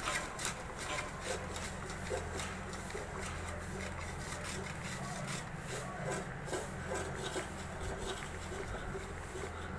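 Labrador eating from a steel bowl: chewing and gulping food, an irregular run of short crisp clicks several times a second.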